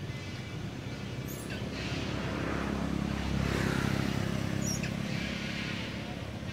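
A motor vehicle passing, its low rumble swelling to a peak a little past halfway and then fading. Two brief high chirps come about a second and a half in and again near the end.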